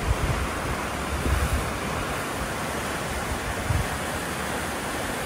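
Floodwater rushing through the concrete channel of the swollen Los Angeles River, with runoff pouring down the sloped concrete bank: a steady rushing of water. Wind buffets the microphone with brief low thumps about a second in and again near four seconds.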